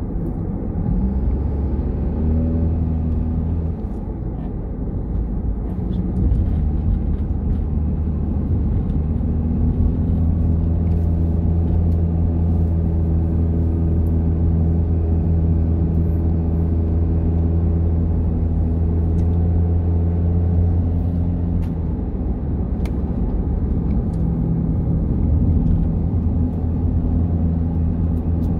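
Car engine running while driving, with steady road noise. The engine's low hum shifts in pitch a few times, early on, about ten seconds in and again a little past twenty seconds, as the speed changes.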